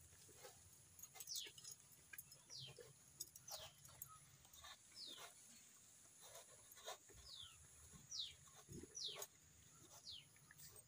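Milk squirting from a cow's teats into a steel bucket during hand milking: short squirts about once a second, each falling in pitch.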